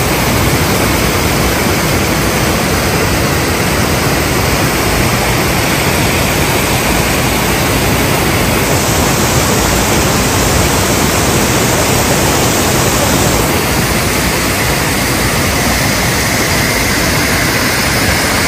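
Mountain stream and small waterfall rushing over rocks: a steady, loud rush of water.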